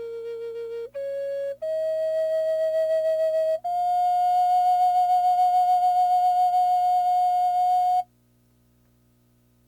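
Flute music playing a slow melody that steps upward through four held notes, the last held long with a gentle vibrato, over a faint steady drone. Near the end it stops abruptly.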